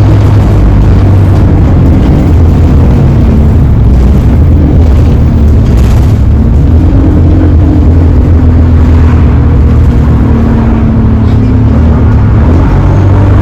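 Alexander Dennis Enviro 200 single-deck bus on the move: engine and drivetrain running steadily, with an axle whine that sounds electric.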